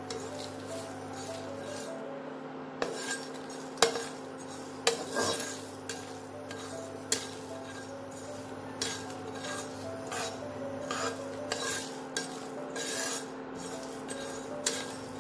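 A spatula stirring and scraping whole coriander seeds, cumin seeds and dried red chillies around a hot, dry nonstick kadai as they dry-roast, with irregular clicks and taps of the spatula on the pan.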